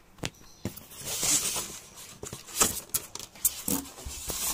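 Styrofoam packing being pulled out of a cardboard TV box: foam scraping and rustling against the cardboard, with a few sharp knocks and clicks.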